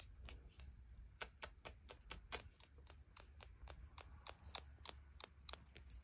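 A Quaker parrot making a rapid series of short, sharp clicks with its beak, about four or five a second, loudest in the second and third seconds.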